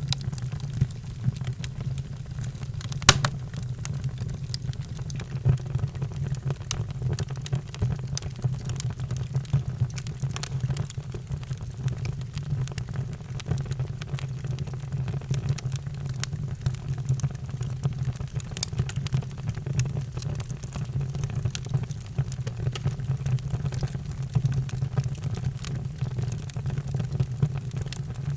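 Wood fire burning in a fireplace: a steady low rumble with frequent sharp crackles and pops, one louder pop about three seconds in.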